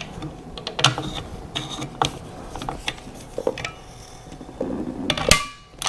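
Torque wrench tightening a buttstock screw on a rifle chassis: scattered small clicks and taps, then a sharper metallic click with a short ring near the end as the screw reaches its set torque.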